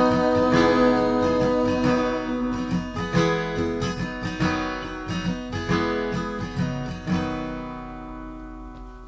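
Acoustic guitar playing the closing bars of a song, with held notes over picked and strummed chords, gradually fading out and ringing away near the end.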